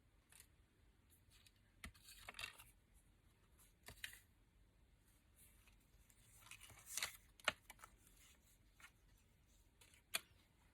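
Faint paper rustling and a few light clicks and taps as craft papers and toppers are handled on a desk, the sharpest tick about two-thirds of the way through and another near the end.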